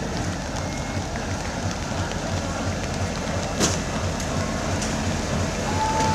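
WDM-class diesel locomotive engine chugging as the train pulls away, with a pulsing low beat. A sharp click comes about halfway through, and a steady high tone begins near the end.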